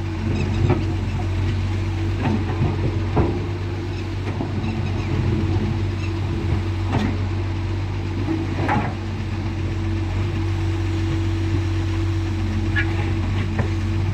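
Doosan DX140 excavator's diesel engine running steadily under work, with a few sharp knocks scattered through.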